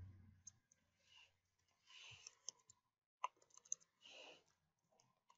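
Near silence with about four faint clicks from a computer keyboard and mouse in the middle, made while text is deleted in a text box.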